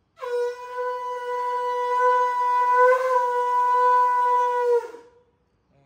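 One long note blown on a horn-type wind instrument, held for about four and a half seconds with a small wobble partway through, sagging in pitch as it fades out.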